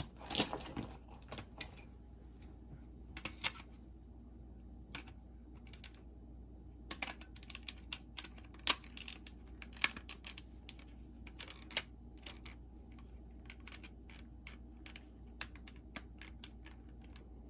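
Hands working on a Sony WM-FX28 cassette Walkman: irregular light clicks and taps of small plastic parts, most of them bunched in the middle.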